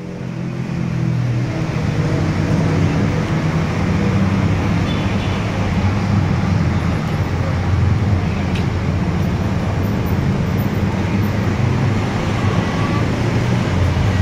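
Steady road traffic noise, a continuous low rumble with hiss, fading in over the first second or so.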